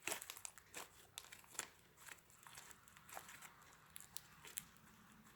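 Faint scattered clicks and crackles of hands working slime and small plastic eggs in a small jar, a few louder clicks right at the start.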